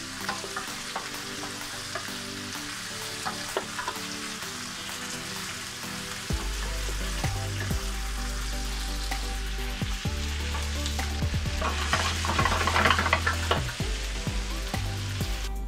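Floured strips of beef sizzling in hot olive oil in a nonstick frying pan, stirred and turned with a plastic spatula that adds small scrapes and taps. The sizzling swells for a moment about twelve seconds in.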